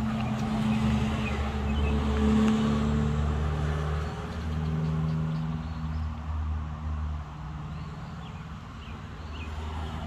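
A motor vehicle engine running, a steady low rumble that is loudest about two seconds in and eases off after about seven seconds.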